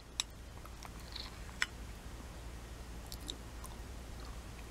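A person eating soft quark off a spoon: quiet mouth and chewing sounds, broken by a few short, sharp clicks.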